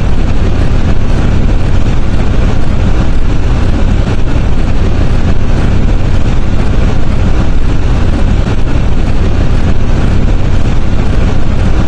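Very loud, steady rumbling noise with a deep low hum, switching on and off abruptly: an inserted sound effect.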